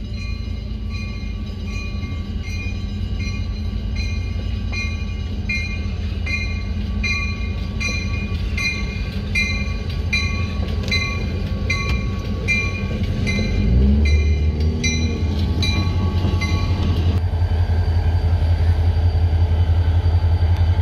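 Railroad grade-crossing bell dinging steadily, a bit under twice a second, over the low rumble of EMD diesel locomotives passing through the crossing. The bell stops near the end, leaving the steady low hum of a locomotive diesel running close by.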